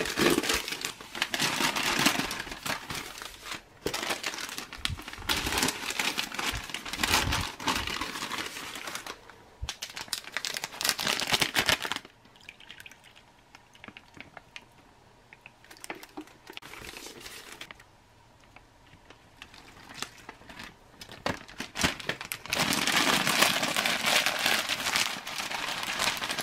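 Crinkling and rustling of plastic and paper ration packaging as the self-heating meal pouches are opened and handled, loud for about the first half, then a quieter stretch, then crinkling again near the end.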